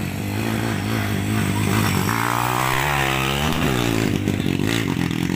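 Dirt bike engines running as the bikes race on a dirt track; about two seconds in, one bike's engine comes up loudest for a second and a half, its pitch sweeping as it passes close.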